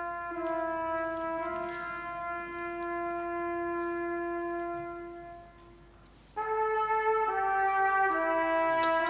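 Solo trumpet playing a slow melody of long held notes. One long note fades out about five seconds in, there is a brief gap, and the trumpet comes back louder about a second later with a few more notes.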